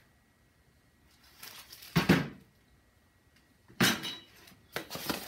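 Steel press parts being handled and unpacked from a cardboard box: a rustle of packaging about two seconds in, then a sharp knock and a few more knocks near the end as parts are moved and set down.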